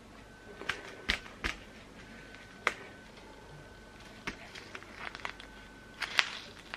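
Foil wine-yeast sachets crinkling and clicking as a toddler's hands pat, push and shuffle them on a wooden table, in a scatter of short, separate sounds.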